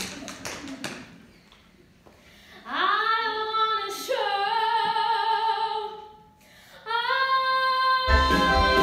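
A teenage girl's solo singing voice, unaccompanied, holding long belted notes: one sliding up about two and a half seconds in, another from about four seconds, a third from about seven seconds. A run of rhythmic taps stops about a second in, and the band comes back in with a full keyboard chord just after eight seconds.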